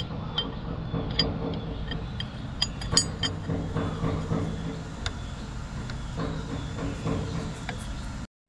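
Sharp metallic clinks of a tool on the steel fittings of a mini excavator's hydraulic control valve, clustered in the first few seconds and sparser after, over a steady low mechanical hum.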